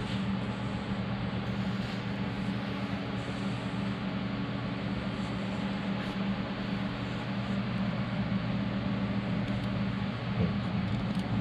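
Steady machine hum: a low, unchanging drone with an even whirring hiss over it, like a fan or electrical unit running.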